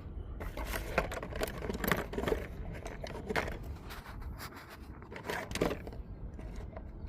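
Irregular small clicks, taps and scrapes of screws and a screwdriver being handled, thickest through most of the stretch and thinning out near the end.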